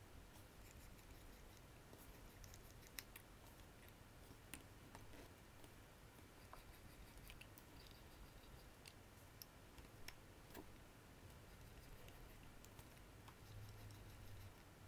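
Faint, scattered small metallic clicks and taps of a watchmaker's screwdriver on the screws and steel parts of a Rolex caliber 3131 watch movement during reassembly.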